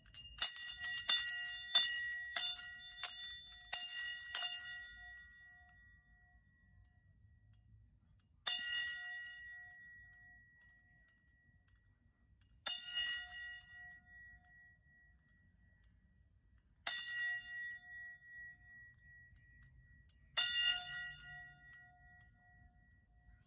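Small metal chime used in sound healing, struck about ten times in quick succession and then once every four seconds or so. Each strike gives a bright, high ringing tone that fades away.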